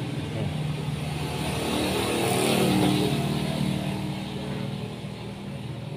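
A motor vehicle's engine passing by: its hum swells to a peak two to three seconds in, then fades away.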